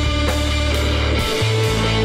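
Background rock music with guitar and a steady drum beat.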